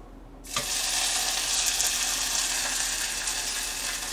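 Mirin-marinated beef hitting a preheated earthenware ttukbaegi with sesame oil: a sudden loud sizzle about half a second in, settling into a steady frying hiss as the meat starts to stir-fry.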